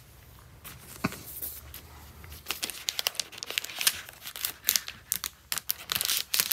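Thin plastic protective film being peeled off a new iPad Pro and crinkling: a single click about a second in, then a dense run of irregular crackles from about two and a half seconds on.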